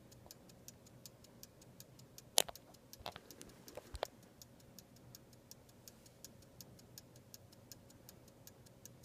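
Open movement of an 18th-century verge fusee pocket watch ticking steadily at about five beats a second as the balance wheel swings. A few louder handling clicks come about two and a half to four seconds in.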